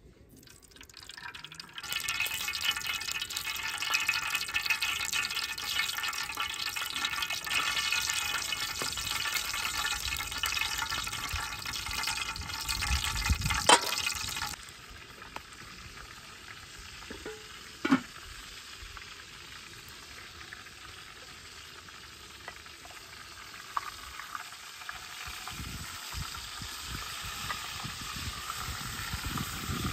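A steady, loud hiss that drops suddenly about halfway through to a softer hiss, with two sharp knocks, one just before the drop and one a few seconds after it.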